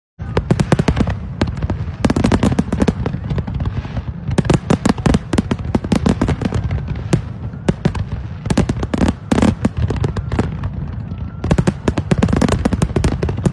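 Large fireworks display: a rapid, unbroken barrage of shell bursts and crackling over a steady low rumble, with the densest volleys coming in waves every few seconds.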